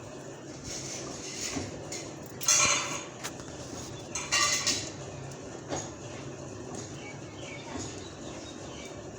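A pet parrot giving two short, harsh, noisy calls, a little under two seconds apart, with a few fainter sounds around them.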